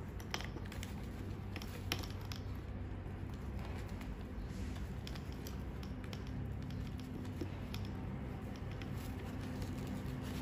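Light clicks and rustles of hands handling servo wires and a plastic part against a foam model-aircraft airframe, while excess wire is tucked in and the part pressed into place, over a steady low hum.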